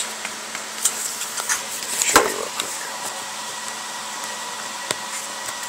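Scattered clicks and scrapes of chewing-tobacco packaging being handled and worked open by hand, over a steady background hiss.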